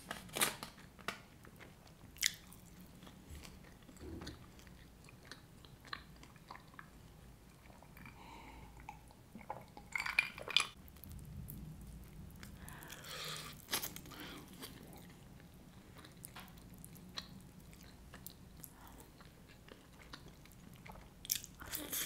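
Close-miked chewing and crunching of french fries and pizza, with sharp bite crunches scattered irregularly and the loudest cluster about ten seconds in.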